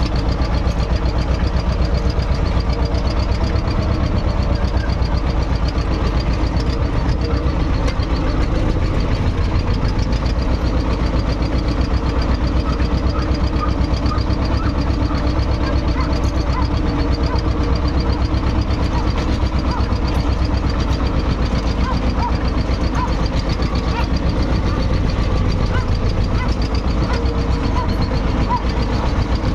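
Vladimirets T-25 tractor's two-cylinder air-cooled diesel engine running at a steady speed under way, a rapid, even train of firing pulses heard from the driver's seat right beside the exhaust stack.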